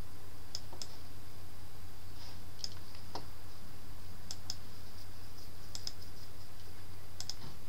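Computer mouse clicking, a scattering of single and double clicks, over a steady low electrical hum and a faint high whine.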